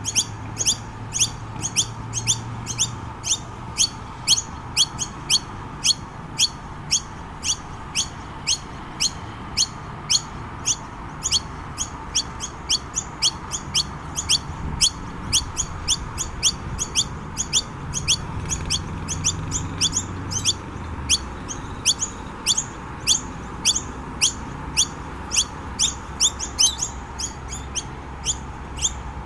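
Noisy miner calling: short, high, sharp chirps repeated evenly about twice a second without a break.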